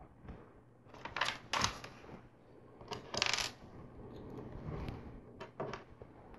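Small plastic LEGO pieces clicking and rattling as they are handled and pressed onto a plate: a few sharp clicks and a short rattle about three seconds in.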